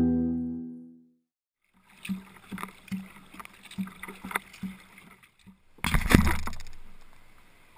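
Sea kayak paddled on open sea, heard from a deck-mounted camera: short splashy paddle strokes and water slapping the hull, about two or three a second. About six seconds in, a wave washes over the bow and the camera with a loud splash that slowly dies away.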